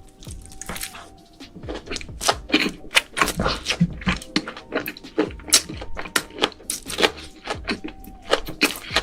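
Close-miked eating sounds: rapid, irregular chewing and mouth clicks from a large mouthful, over faint background music.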